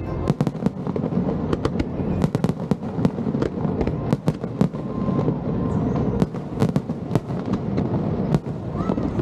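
Aerial fireworks going off in quick succession: many sharp bangs and cracks, several a second, over a constant low rumble.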